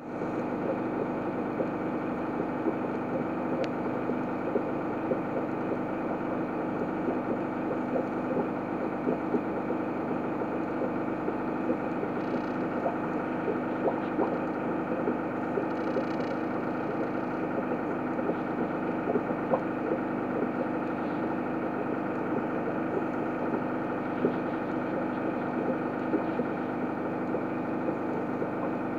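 A steady mechanical hum made of many even tones, unchanging throughout, with a faint irregular crackle over it.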